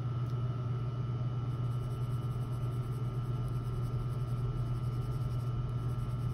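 Steady low background hum with a faint, even high whine over it and no distinct events: the room's background noise.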